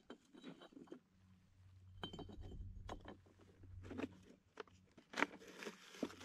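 Faint clinks and scrapes of a summit register can being handled among the rocks of a cairn and its lid pulled open, in a series of short irregular knocks.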